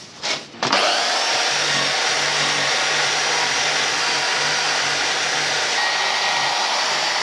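Power tool driving a wire wheel against a steel motorcycle suspension link, scrubbing off light flash rust. It starts under a second in, just after a short knock, and then runs on as one steady, even noise.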